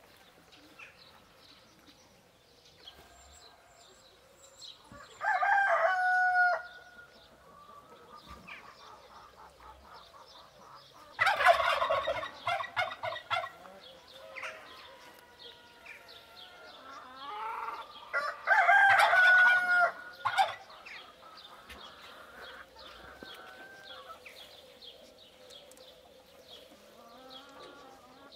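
Rooster crowing three times, each crow over a second long, with small birds chirping faintly between the crows.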